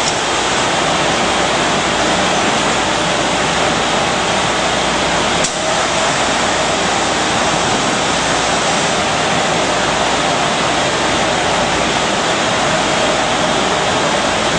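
Steady loud machinery din of a running can depalletizer and production line. A single sharp click comes about five and a half seconds in.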